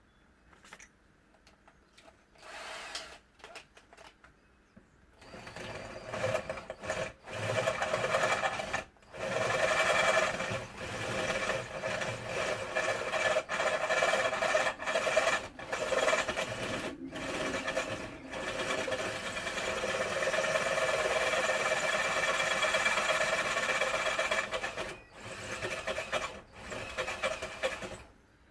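Electric drill boring into the metal of a steering lock housing to open up the holes around its pins: a short burst about two and a half seconds in, then steady drilling from about five seconds in with a few brief pauses, stopping just before the end.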